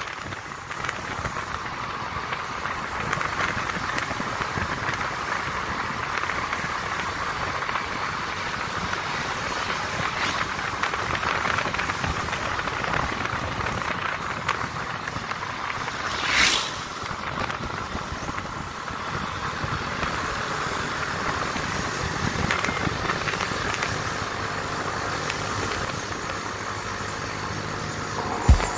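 Steady noise of riding on a moving motorcycle: rushing air and engine and road noise, with no clear engine note. A brief louder rush comes a little past the middle.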